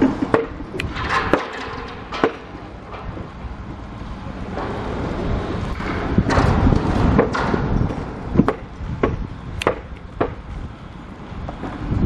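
Scattered sharp knocks and clanks from work on a steel roof frame, coming irregularly about a second or more apart, over a steady low rumble.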